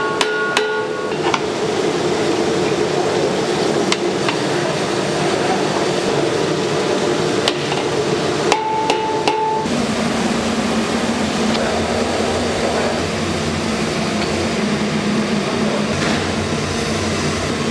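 Food-production work noise: steady machine noise with scattered metal clanks and knocks. A short electronic beep-like tone sounds about nine seconds in, and a steady low machine hum follows for the rest of the time.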